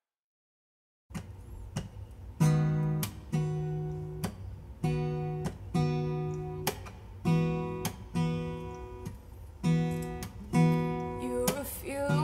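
Acoustic guitar played solo, chords struck one after another and left to ring. It comes in about a second in, after dead silence.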